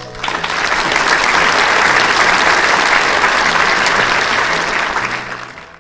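Applause from a crowd clapping, swelling in just after the start and fading out near the end.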